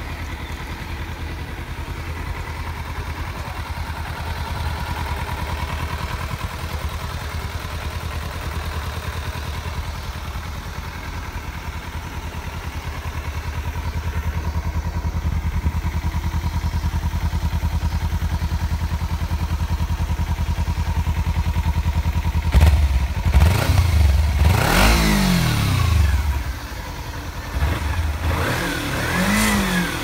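Kawasaki Z250's 250 cc inline two-cylinder engine idling steadily, then revved in a few quick throttle blips over the last several seconds, its pitch rising and falling with each one.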